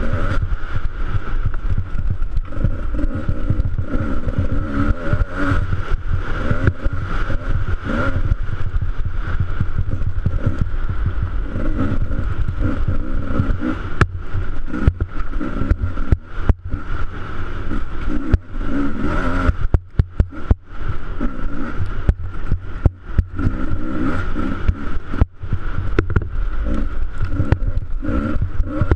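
Enduro motorcycle engine running and revving hard under load, its note rising and falling with the throttle, with a few brief dips in loudness in the second half.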